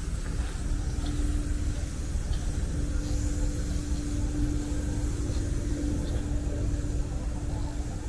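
Forestry tractor's diesel engine running steadily: a low rumble with a steady hum over it.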